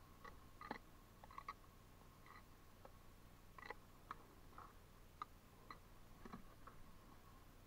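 Bricklaying trowel scooping mortar from a bucket and spreading it onto a brick: faint, irregular clicks and scrapes of steel on mortar, brick and bucket rim.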